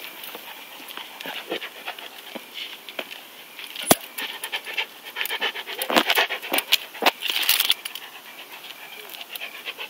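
A Fila Brasileiro walking on a leash on asphalt: irregular taps and clicks of steps, with breathy panting. One sharp click comes about four seconds in.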